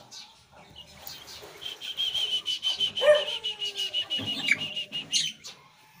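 A small parrot chirping: a rapid string of high, even chirps at one pitch, about seven a second, for a few seconds. A louder, lower call falls in pitch about halfway through.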